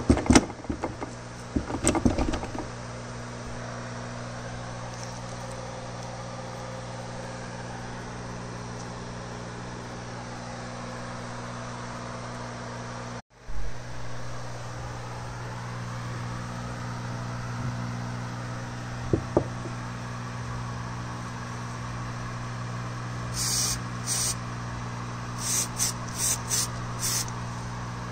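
Steady low machine hum, like a fan or motor running in the workshop. Over it come sharp metallic clinks in the first couple of seconds as the transmission gears and shafts are handled, a couple of knocks later on, and a run of short hissing bursts near the end.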